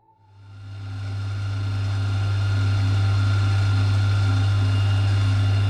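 Milling machine motor switched on, winding up to speed over about two seconds and then running steadily with a deep hum.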